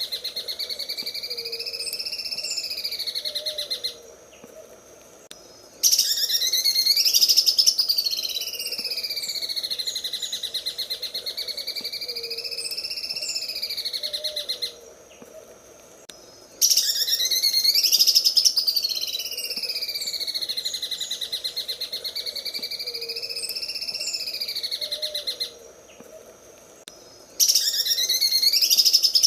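Green leafbird (cucak ijo) singing its 'sewing machine' song: long phrases of very rapid repeated notes, running like a sewing machine, swinging up and down in pitch. Each phrase lasts about 8 to 9 seconds, with short pauses about 4, 15 and 26 seconds in, and the same phrase comes back each time as a loop.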